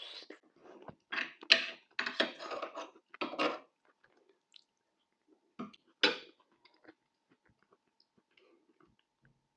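Close-miked chewing and crunching of food. There is a run of loud bites and chews in the first few seconds, then one more about six seconds in, then only faint mouth clicks.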